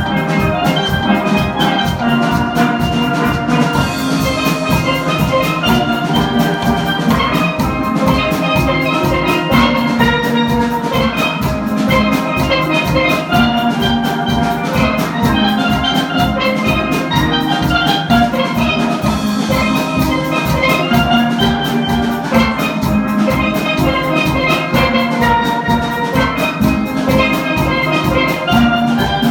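Steel band playing: several steelpans sounding quick melodic notes over drums that keep a steady beat.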